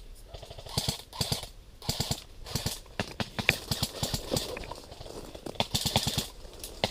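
Airsoft guns firing short full-auto bursts. Each burst is a quick run of sharp clicks, repeating every half second or so, several times.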